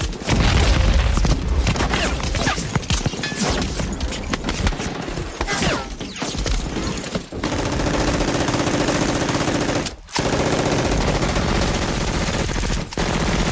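Heavy automatic gunfire: rapid, overlapping machine-gun and rifle fire for about the first seven seconds, then a steady droning rumble, broken by a brief drop about ten seconds in.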